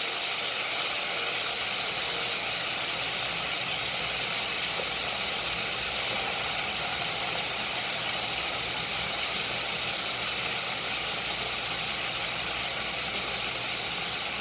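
Chicken wings frying in hot oil in a cast-iron skillet, a steady sizzle.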